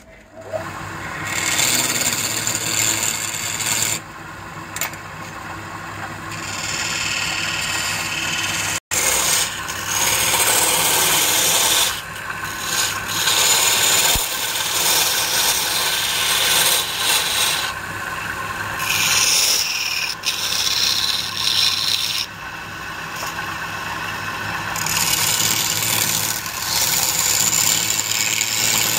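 Wooden blank spinning on a lathe while a hand-held turning tool cuts into it: a rasping scrape of steel on wood that swells and eases as the tool is pressed in and backed off, over a faint steady hum from the lathe.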